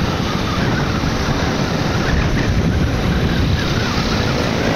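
Steady rush of wind over the microphone with engine and road noise, recorded while riding through traffic on a wet road.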